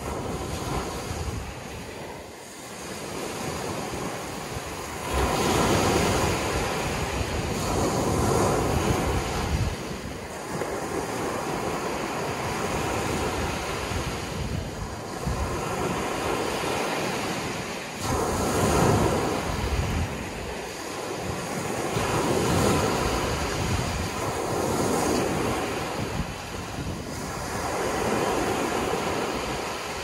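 Ocean surf: waves breaking and washing in, swelling and fading every few seconds.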